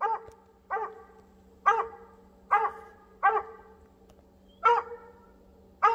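Mountain cur tree barking: a steady run of single barks, roughly one a second, each rising and falling in pitch. It is the chop of a dog that has treed a raccoon and is holding it up the tree.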